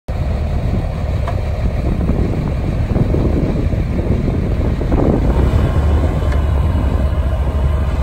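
Bobcat 753 skid steer's diesel engine running steadily with a deep, even drone while the machine moves slowly.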